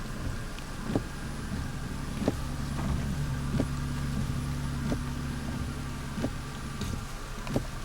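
A steady engine hum, swelling through the middle and easing off near the end, with a sharp tick about every 1.3 seconds.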